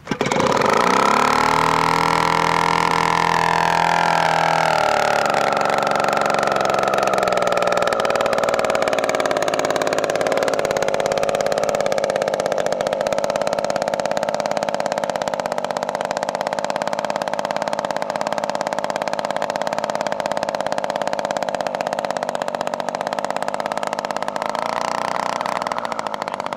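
3W-55 two-stroke petrol engine of a giant-scale model Spitfire catching on a hand flip of the propeller and running. Its note shifts unevenly for the first several seconds, then settles into a steady run.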